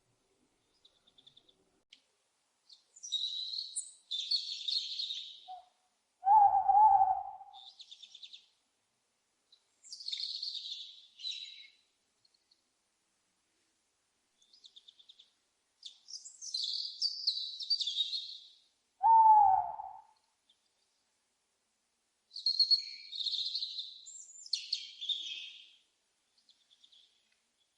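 Owls screeching in four rasping, high-pitched bouts of a second or two each, broken by two short, lower, falling hoots that are the loudest calls, one about a quarter of the way in and one about two-thirds of the way in.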